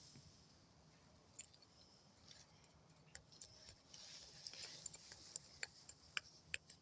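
Near silence with faint, scattered light clicks and ticks from small objects being handled. The clicks come more often in the second half.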